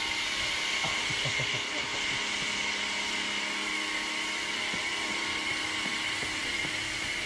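Ryobi 1600 PSI electric pressure washer running steadily while spraying through its gun, a constant hiss of the spray over the hum of the pump motor.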